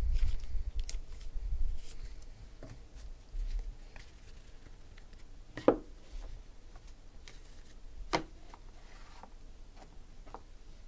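Trading cards being handled and set down on a table. Low bumps and rustling come near the start, then scattered light clicks and two sharp taps, about six and eight seconds in.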